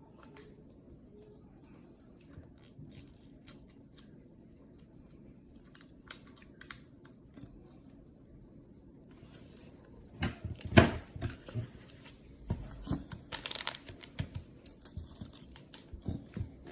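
A snack wrapper crinkling and tearing as it is opened. At first there are only faint scattered clicks, then from about ten seconds in comes louder, busy crackling and rustling.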